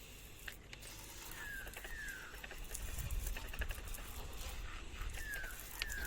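A bird calling: short falling whistled notes, two in quick succession about a second and a half in and another pair near the end, over faint scattered ticks and patter and a low rumble that comes in about halfway.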